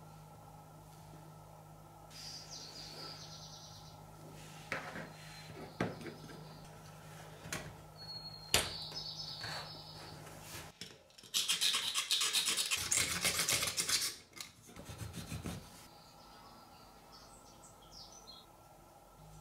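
Small block magnets being handled and set into a plastic frame: a few sharp clicks in the first half, then about three seconds of loud, rapid scraping around the middle.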